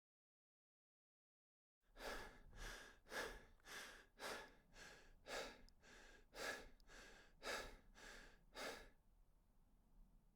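Faint, rapid, rhythmic breathing or panting: about a dozen airy breaths, just under two a second, starting about two seconds in and stopping near the end.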